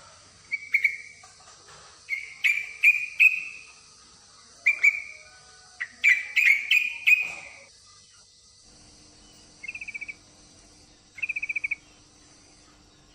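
Yellow-vented bulbul (trucukan) calling: bursts of short, bubbly chirping notes, then two brief rapid trills near the end. It is the female's call, which the title presents as a female in breeding condition calling a male.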